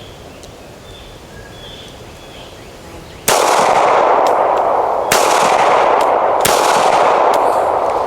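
Three handgun shots fired in quick succession, the first about three seconds in, then about two seconds and a second and a half apart, each trailing off in a long echo. Faint bird chirps before the first shot.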